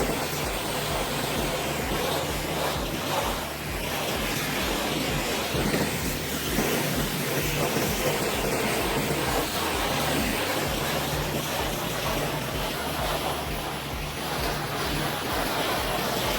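Steady loud rushing noise with a low pulsing rumble underneath.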